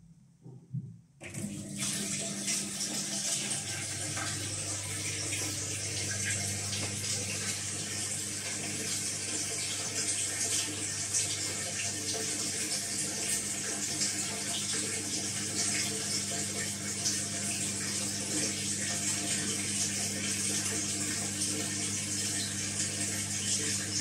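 Whirlpool AWE7516/1 top-loading washing machine in service test mode, with water rushing through it over a steady low hum. The sound starts suddenly about a second in, and the hum grows stronger a couple of seconds later.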